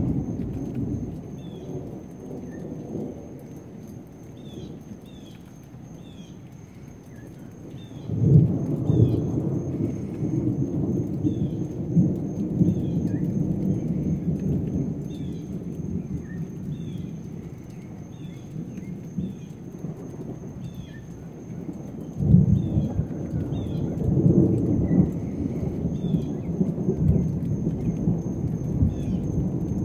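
Thunder rumbling: a sudden loud peal about eight seconds in that rolls on for several seconds, and another about twenty-two seconds in, with quieter rumbling between. Short high chirps repeat in the background.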